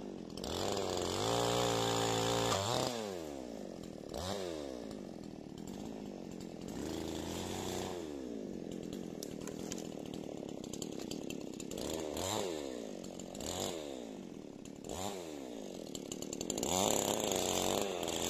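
Carver Promo two-stroke petrol chainsaw running, its engine speed rising and falling several times, from bursts at high revs back down to idle.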